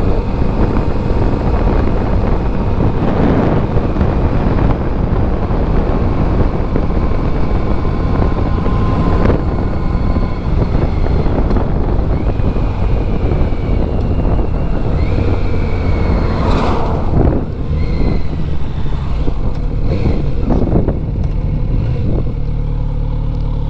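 Wind rushing over the microphone of a Kawasaki Z900RS inline-four motorcycle at road speed, with the engine running under it. There is a brief louder rush about two-thirds of the way through. Near the end the wind eases as the bike slows, leaving the engine's steadier low note.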